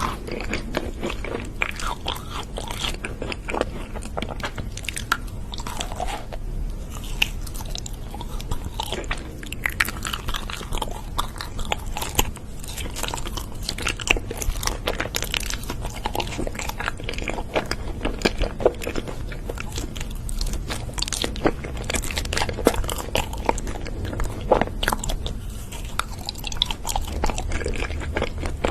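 Close-up chewing and biting of crunchy food: dense, irregular crunches and crackles that go on without a break.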